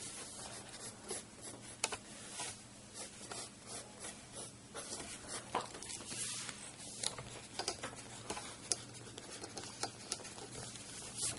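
Pencil sketching on paper: quick, repeated scratchy strokes as lines are drawn and gone over, with an occasional sharper tick of the lead on the page.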